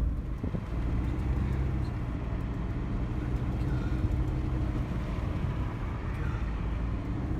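Car driving along at a steady pace: a steady low rumble of engine and tyre noise.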